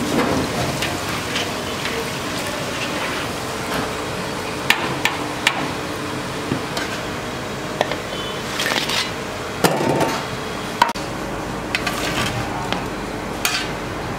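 Metal kitchen utensils clinking and knocking against steel plates and pans in a busy kitchen, a few sharp clacks standing out over a steady background hiss.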